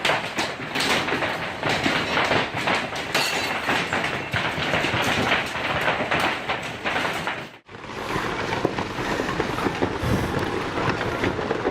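Heavy hailstorm: hailstones pelting hard surfaces in a dense, continuous clatter of countless impacts. The sound cuts out for an instant about two-thirds of the way through, then carries on slightly duller.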